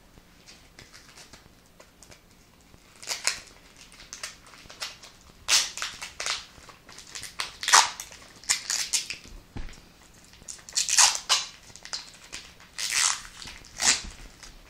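Rubber-gloved hands rubbing and crinkling as they handle a bundle of embroidery floss: irregular scraping rustles, starting about three seconds in and coming every second or so.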